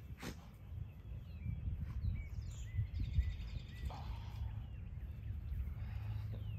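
A Belgian Malinois tugging on a tug toy with its handler: low, rumbling noise with irregular pulses and scuffling. There is one sharp click right at the start and a few faint, short high chirps in the middle.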